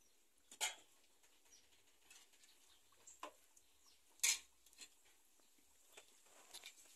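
A handful of sharp pops and crackles over a faint hiss, the loudest a little past four seconds in, from a wood-fired stove where an empanada is frying in oil in a clay pot.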